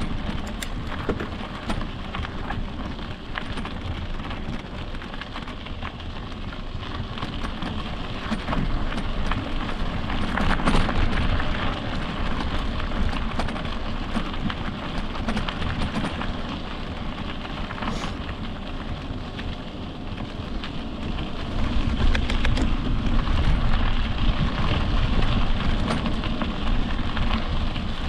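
Electric mountain bike rolling along a dirt trail: a steady rough crunch of tyres on dirt and gravel, mixed with wind rumbling on the microphone. A few sharp knocks come from bumps, one about ten seconds in and another near eighteen seconds, and the noise swells louder in stretches.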